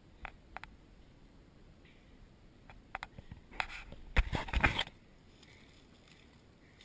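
Footsteps on dry leaf litter and twigs on a steep forest slope: a few light clicks near the start, then a loud burst of crunching and rustling about three and a half to five seconds in.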